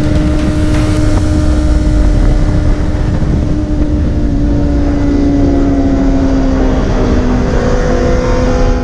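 2007 Honda CBR600RR's inline-four engine heard onboard, its steady note slowly falling in pitch as the bike slows for a corner, over a loud low rush of wind noise.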